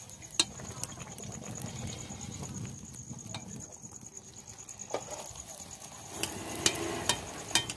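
Fuchka puris frying in hot oil in an iron wok over an open straw-and-wood fire: a low sizzle with sharp crackles and pops scattered throughout, busier near the end.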